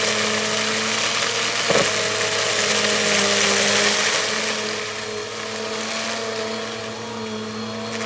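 Bissell vacuum cleaner running: a steady motor whine over rushing air, its pitch shifting slightly as the load changes. A short knock just under two seconds in, and the rush of air eases somewhat in the second half.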